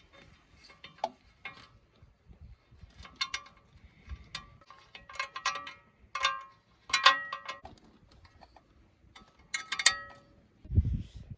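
Metal hand tools and parts clinking and knocking against metal, several sharp strikes that ring briefly, with a low thump near the end.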